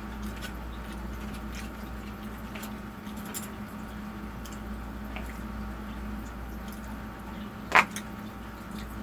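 Faint wet mouth sounds of someone eating, with scattered small clicks and smacks and one short squeaky smack about three-quarters of the way in, over a steady low hum.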